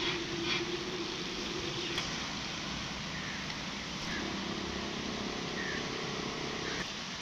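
Steady hum of traffic on the road bridge overhead, with a sustained engine-like tone that fades about two seconds in and comes back around four seconds in.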